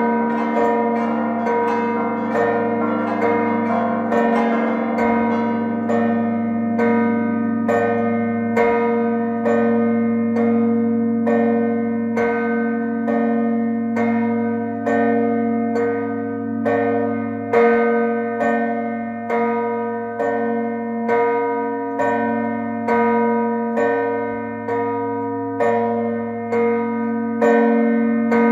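Six church bells ringing a Maltese festa peal, the mota ta' l-għeluq that marks the close of a parish feast. The bells clash densely over the first few seconds. They then settle into a steady run of strokes a little under a second apart, each ringing on over a continuous bell hum.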